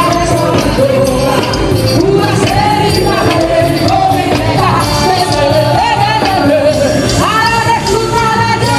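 Christian worship song: a singer's voice carrying the melody over a full band with a steady beat.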